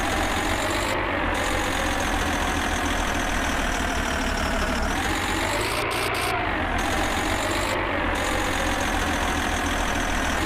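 A truck engine idling steadily with a low, rapid pulse. The same stretch of sound repeats about every six seconds, like a looped sound effect.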